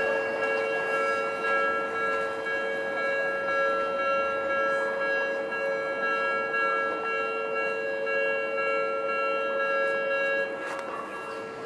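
Japanese level-crossing warning bell ringing steadily as the barriers lower, a repeating electronic chime of several fixed tones. It cuts off about a second before the end.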